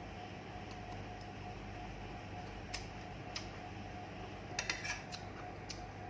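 Scattered light clicks and clinks of eating utensils against a plate during a meal, including a quick run of several clicks a little before the end, over a steady background hum.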